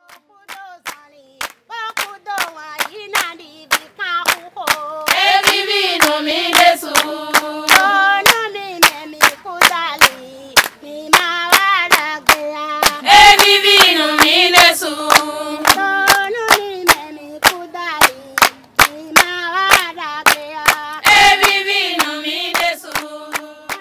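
A group of women singing together to steady, evenly spaced handclaps. The singing swells loudest in three passages.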